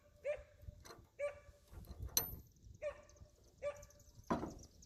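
A dog yelping or whining in short, repeated high calls, about one a second, five in all. There is a sharp click about two seconds in.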